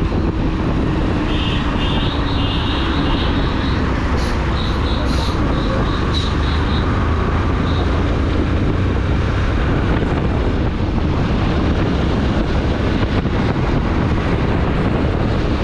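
Motorcycle riding at speed through city traffic: wind buffeting the microphone over the engine and road noise. In the first few seconds there are clusters of short, high beeps repeated quickly.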